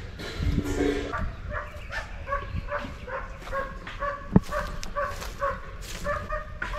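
A dog giving a series of short, high yips and whimpers, about two to three a second, with one sharp knock about halfway through.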